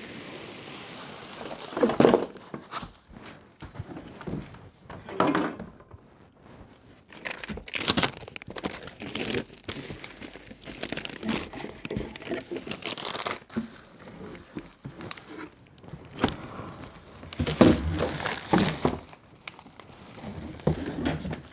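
3D printer packaging being unpacked by hand: irregular crinkling and rustling, with scattered thunks and knocks as parts are lifted out and set down.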